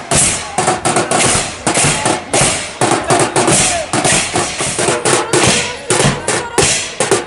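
Marching band percussion: bass drum, snare drums and clashed hand cymbals playing a steady beat of sharp, crashing strokes.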